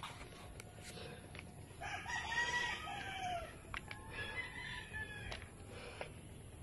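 Rooster crowing: one long crow about two seconds in, then a fainter crow about a second later.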